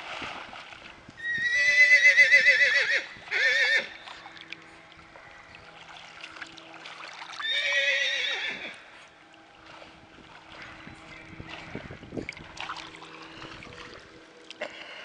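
Horse whinnying loudly: a long quavering whinny about a second in, broken by a short second call just after, then another whinny about seven and a half seconds in.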